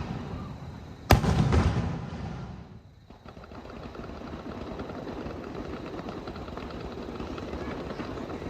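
An aerial firework shell bursting with a sharp bang about a second in, its boom rumbling away over a second or so, followed by a steady, fainter crackling patter.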